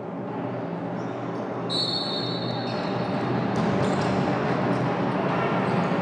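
Referee's whistle blown once, about two seconds in, to restart futsal play, over the echoing din of spectators in a sports hall. A few dull thuds of the ball being kicked and bouncing on the wooden court follow.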